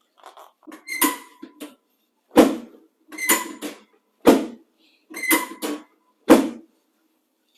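Chiropractic adjustment on a treatment table: a string of quick thrusts. Three sharp thuds come about two seconds apart, with clusters of short knocks and squeaks between them.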